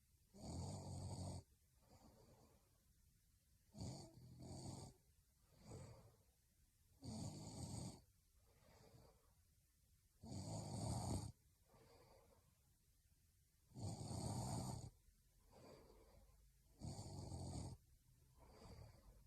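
A young woman snoring in her sleep: six rough snores about three seconds apart, each lasting about a second, with fainter breaths between them.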